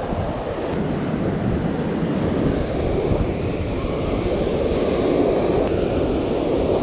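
Surf breaking and washing up the beach in a steady rush, with wind buffeting the microphone.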